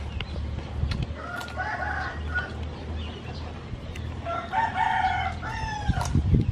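A rooster crowing twice, once about a second in and again, a little longer, about four seconds in, over a low background rumble.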